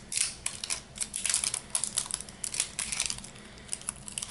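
Thin plastic packaging being picked at and peeled off by hand, crinkling and crackling in quick, irregular bursts.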